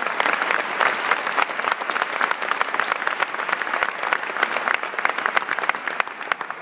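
A large audience applauding, with dense clapping that thins out to a few scattered claps near the end.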